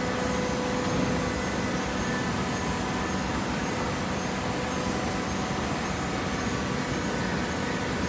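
Horizontal hydraulic baler running: a steady mechanical hum with several faint whining tones held throughout.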